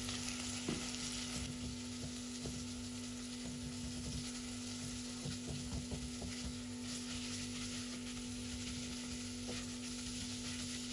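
Minced beef and sliced onions sizzling as they fry in oil in a pot, stirred with a silicone spatula that gives soft irregular scrapes and taps against the pan. A steady low hum runs underneath.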